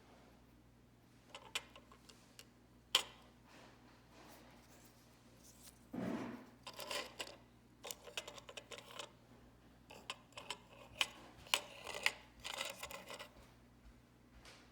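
Clicks and scrapes of small hard objects being handled close up, with one sharp click about three seconds in and a busy run of clicks and scraping in the second half.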